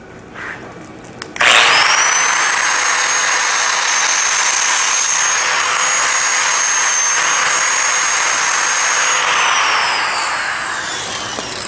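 Angle grinder switched on about a second and a half in, its abrasive disc grinding the freshly quenched steel axe head bright with a steady high whine. Near the end it is switched off and the whine falls in pitch as the disc spins down.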